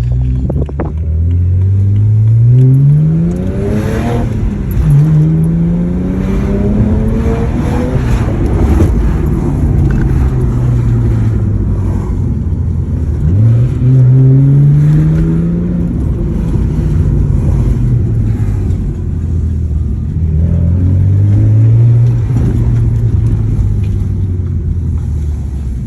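BMW N54 twin-turbo inline-six accelerating hard through the gears. The engine note climbs steeply, drops back at a shift about five seconds in, and later falls off and climbs again twice.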